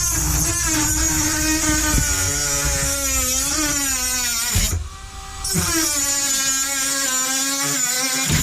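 Teccpo cordless rotary tool with a heavy-duty cutting disc, running at increased speed and grinding into a padlock. Its high whine wavers in pitch as the disc loads against the metal. It goes quieter for about a second halfway through, then cuts in again.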